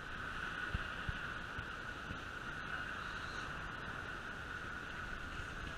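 Steady wind and small surf breaking on the beach, heard as an even hiss on the camera's microphone, with a couple of faint ticks about a second in.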